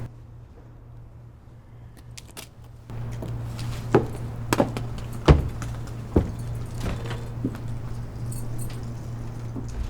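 A run of sharp knocks and clicks, several in a row about half a second to a second apart, over a low steady hum that starts about three seconds in.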